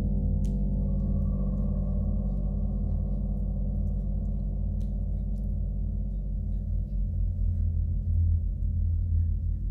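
Tibetan gong ringing on in a long sustained tone with no new strike: a deep, pulsing low hum under a shimmer of higher overtones that slowly fade. The low hum swells louder near the end.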